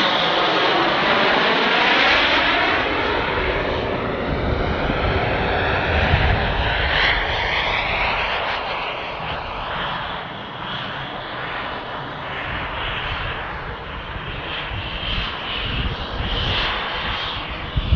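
JetCat P220-RXi model turbine engine of an RC jet running in flight as the jet makes low passes. In the first few seconds the sound sweeps in pitch as the jet passes. It grows quieter around the middle as the jet moves away and swells again near the end as it comes back.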